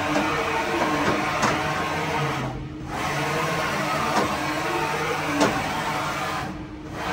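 Hurco BMC 30/M vertical machining center's table traversing back and forth on its axis drives: a steady mechanical running noise with a whine that slides in pitch. It briefly drops away twice as the table stops to reverse direction.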